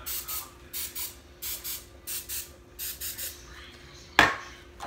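Aerosol coconut oil cooking spray hissing in short bursts, about two a second, as a muffin tray is greased so the batter won't stick. About four seconds in there is a single sharp knock, the loudest sound.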